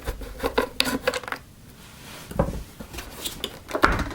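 Clicks, taps and rattles of the Miele S5210 vacuum cleaner's plastic housing and a screwdriver being handled during disassembly. A quieter spell in the middle, then the loudest knocks near the end.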